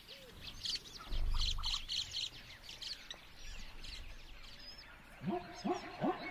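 Birds chirping in a wildlife soundscape, with a brief low rumble about a second in. Near the end a run of short rising animal calls starts, about two a second.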